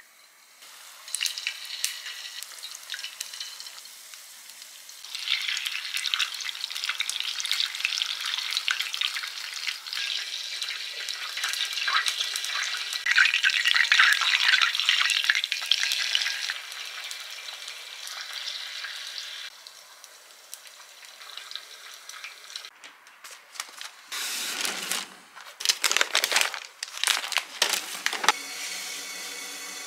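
Eggplant rolls deep-frying in hot oil in a small tabletop deep fryer. The sizzling starts about a second in, grows louder a few seconds later and stops about two-thirds of the way through. A few knocks and handling sounds follow near the end.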